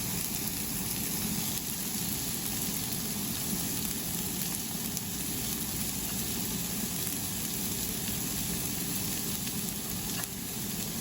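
Steady sizzling from food frying in a pan on the stove.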